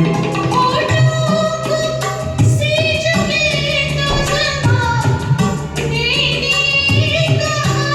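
A Hindi film song sung to a karaoke backing track: a singing voice holds long, wavering notes over sustained keyboard accompaniment.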